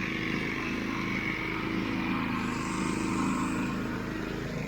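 Engine of a home-built zero-turn ride-on lawn mower running steadily while it mows short grass.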